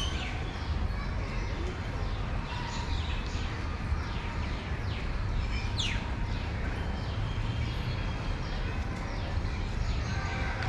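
Several birds chirping over and over in short falling calls, with one louder, longer downward call about six seconds in, over a steady low rumble.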